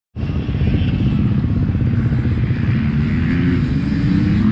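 Off-road dirt bike engine running, its pitch rising slightly near the end.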